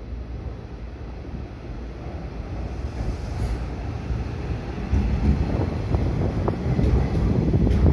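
Hanshin 5700 series electric train running in past the platform. The rumble of its wheels on the rails grows louder over the first five seconds, with a few short clicks near the end.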